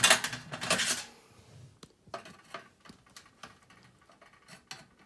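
Small metal clicks and clinks as a nut is threaded by hand onto a screw through a typewriter table's shelf bracket, with a louder clatter of metal parts in the first second and sparse light ticks after.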